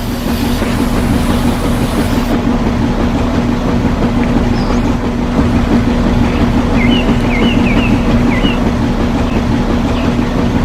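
A small motor running steadily with a constant hum, with birds chirping briefly about two-thirds of the way through.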